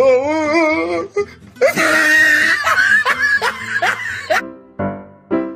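Laughing voices over music, then from about four seconds in a piano tune with evenly spaced notes.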